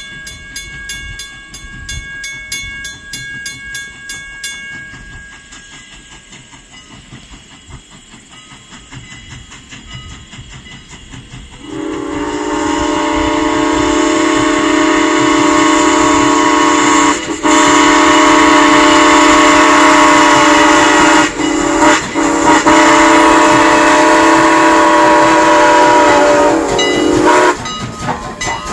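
Strasburg Rail Road No. 89's steam whistle blowing the grade-crossing signal, long, long, short, long, as the locomotive reaches a road crossing; a loud, steady, low chord of several notes. A crossing-signal bell rings evenly in the first few seconds.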